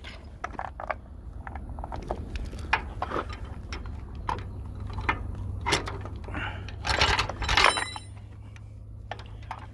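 Steel chain clinking and rattling in short, irregular bursts as it is handled and wrapped around a boat trailer's steel tongue, with a busier run of clinks near the end.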